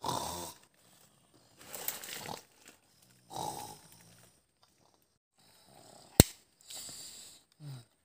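A person snoring: a series of loud, rasping snores a second or two apart. About six seconds in there is a single sharp click.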